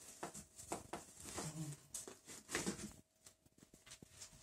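Faint rustling and a few light knocks of padded protective gear (armour pieces and a helmet) being lifted out of a cardboard box and handled.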